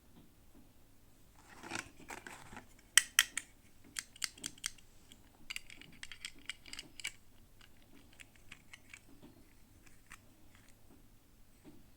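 Hands unpacking miniature toys: a short rustle of plastic packaging, then a run of sharp clicks and snaps. The loudest clicks come about three seconds in, and scattered clicks thin out near the end.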